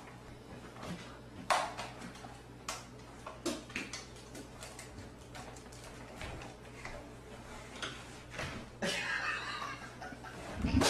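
A dog's claws clicking and scraping on wood, with a few faint knocks, as it squeezes through a small wall opening and slides down to the floor. There is a louder scuffle near the end.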